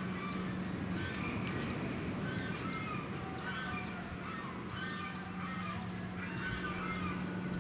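A flock of birds calling over and over in short, repeated calls that sound like geese, over a steady background rush.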